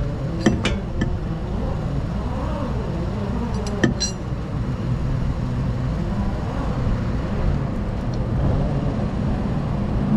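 Steady low workshop hum with a few sharp metallic clicks and clinks, about half a second in and again around four seconds in, as gloved hands handle a coilover and spring inside a car's wheel well.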